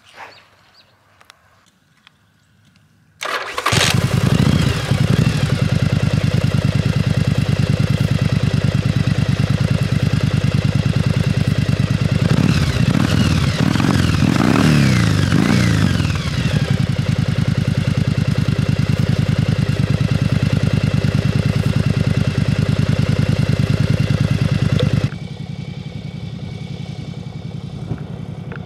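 The Yamaha Virago 1000's air-cooled V-twin, fitted with a Two Brothers muffler, fires up about three seconds in and runs steadily, with several blips of the throttle around the middle. Near the end it drops suddenly to a more distant engine sound as the trike is ridden away across the field.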